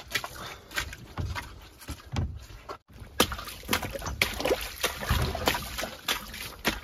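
Footsteps squelching and splashing through a muddy, waterlogged trail, boots sloshing in shallow puddles at an irregular walking pace.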